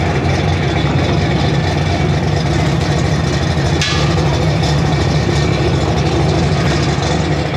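V8 engine of a Ford Fairmont drag car idling steadily with a deep, even rumble. A brief hiss sounds about four seconds in.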